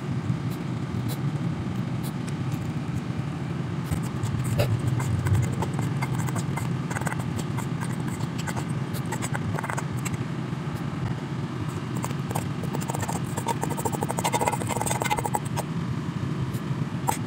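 Utensils clicking and scraping against a dish, thickest in two stretches, over a steady low hum.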